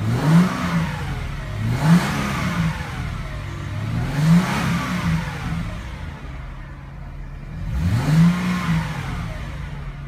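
2001 Mercedes SLK320's 3.2-litre V6 revved four times from idle, each rev climbing and dropping back, heard inside the cabin. The engine is answering a newly replaced electronic accelerator pedal with throttle position sensor, fitted to cure a P0120 code.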